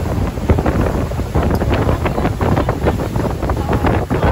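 Wind buffeting the microphone on a speedboat running at speed, over a low, steady rumble from the boat and the water beneath it.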